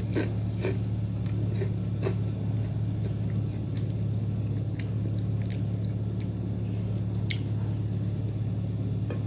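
Close-miked eating: a person chewing a meal of rice and side dishes, with scattered short mouth clicks and smacks, over a steady low hum.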